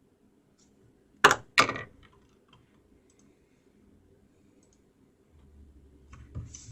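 Clicking and typing at a computer: two loud clacks about a second in, a third of a second apart, then faint scattered taps.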